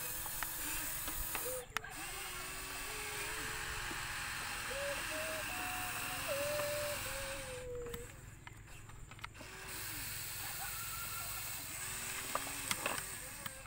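A child humming engine noises with her voice: short wavering tones that rise and fall, broken into many pieces. Near the end come a few light clicks and taps of plastic toys and a shovel in soil.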